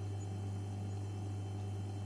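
Continuous electrical hum and buzz: a deep, steady hum with fainter higher buzzing tones over it, unchanging throughout.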